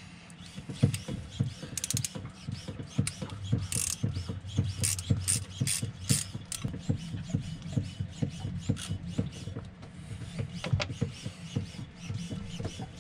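Hand socket ratchet clicking in short runs while the thermostat-housing bolts are undone on a Yanmar 2GM marine diesel, with scattered metal clicks and clinks of the tool against the engine.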